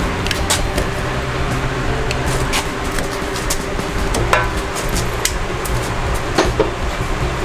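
Clicks, knocks and two short squeaks of a hand tool and a rubber transmission cooler hose being handled and fitted, over a steady low hum.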